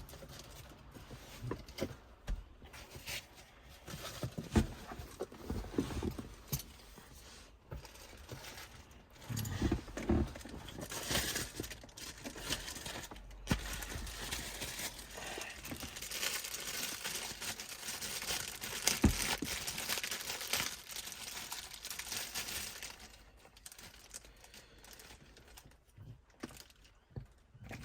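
Plastic packaging crinkling and tearing, with scattered clicks and small knocks, as a small external microphone and its cable are unwrapped and handled.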